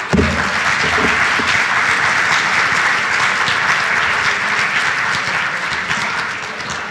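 Audience applause in a conference hall: dense clapping that starts at once, holds steady, and begins to fade near the end.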